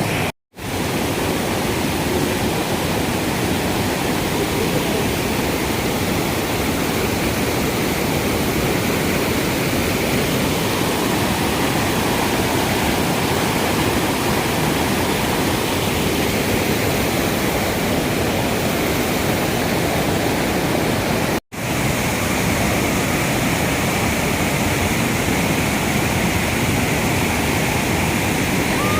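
Steady, loud rush of a waterfall's falling water. The sound cuts out for an instant twice, just after the start and about two-thirds of the way through.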